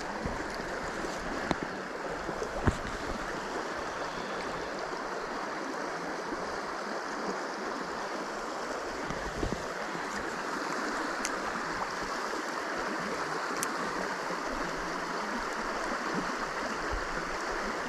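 A small creek's water running steadily, with a few faint clicks scattered through it.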